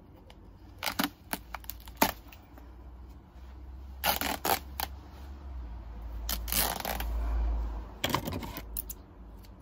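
Fabric of a pair of Lacoste shorts being torn apart by hand: a few short, sharp rips, then a longer tear about six to seven seconds in and more quick rips after it. A low rumble runs under the middle part.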